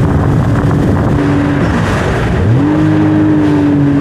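Jet ski engine running under way, with wind and water spray rushing past. About halfway through, the engine note drops briefly as the throttle eases, then rises again and holds steady as the throttle is opened.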